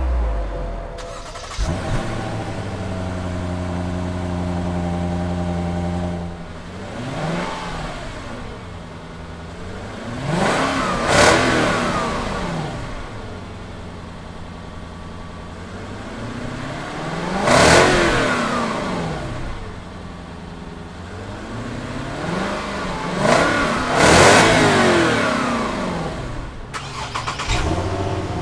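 Lexus LS 460's 4.6-litre V8 idling steadily through its exhaust, then revved four times from idle, each rev rising and falling back within a couple of seconds, the first one light.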